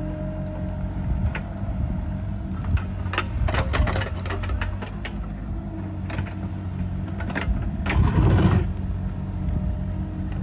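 Bobcat E37 mini excavator's diesel engine running steadily, with a cluster of metallic clanks about three seconds in and a louder scraping, grinding burst about eight seconds in, typical of the bucket working in soil and stones.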